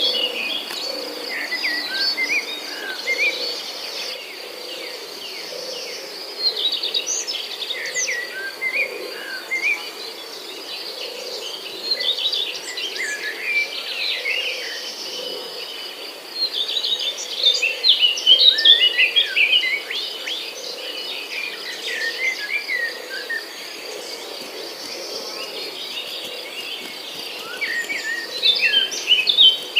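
Several songbirds chirping and twittering in busy bursts over a steady, high-pitched insect trill like crickets.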